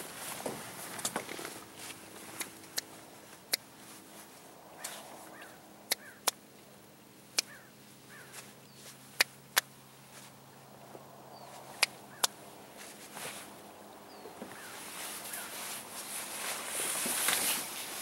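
Quiet lake ambience with a dozen or so scattered sharp clicks and taps, over a faint low hum. A soft wash of noise builds over the last few seconds.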